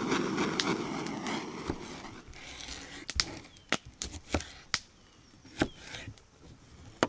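A hiss that fades away over the first two seconds, then about seven sharp clicks and knocks at uneven intervals from cooking gear being handled at a camp.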